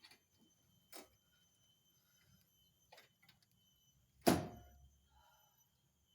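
A few light metallic clicks followed by one loud, sharp metal knock with a short ring after it, from tools and parts being handled and fitted while a car's front wheel hub is put back together.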